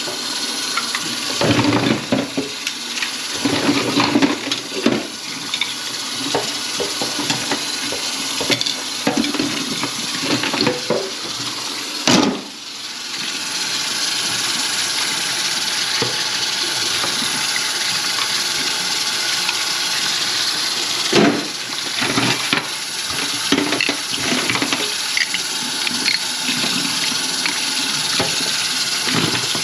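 Water running steadily in a kitchen sink, with knocking and clattering through the first twelve seconds, a sharp knock about twelve seconds in, and a few more knocks a little past twenty seconds.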